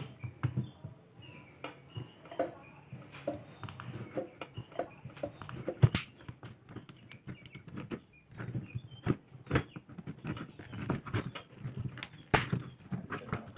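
Irregular clicks and knocks of plastic and metal parts and hand tools being handled while a washing machine is taken apart.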